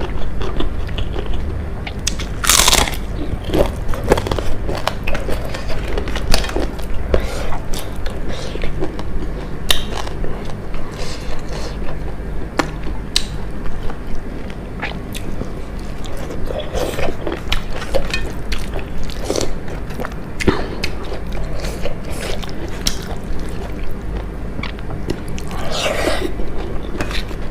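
Close-miked crunching and chewing of crispy fried and dried food, with many short sharp crunches throughout and two louder bites, about three seconds in and near the end.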